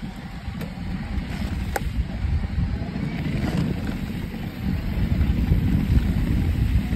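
Wind buffeting the microphone over the rumble of a mountain bike rolling down a dirt trail, growing steadily louder, with a sharp click about two seconds in.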